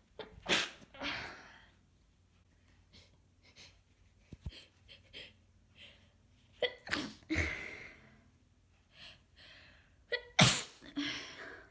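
A woman sneezing three times from a congested head cold: once just after the start, again about seven seconds in, and hardest near the end. Short sniffs and breaths come between the sneezes.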